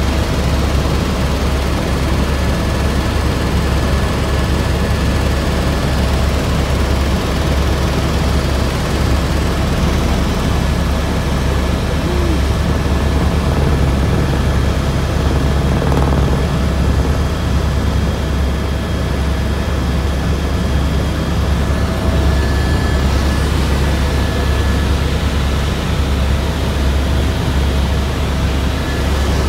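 Helicopter in flight heard from inside the cabin: a loud, steady low drone of the rotor and engine with faint constant whining tones and rushing air over it.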